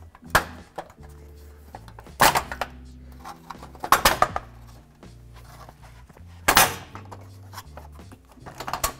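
Plastic front bumper valance of a Ford Ranger knocking and clattering as it is wiggled and yanked loose from its clips, with sharp knocks about every two seconds. Background music with a steady bass line underneath.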